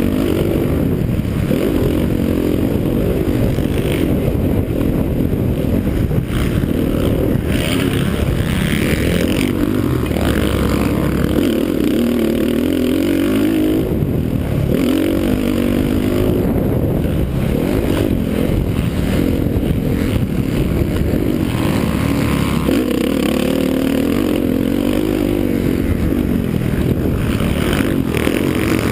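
Motocross dirt bike engine, heard from the rider's helmet camera, revving up and down continuously as the throttle is opened and closed, its pitch rising and falling every second or two.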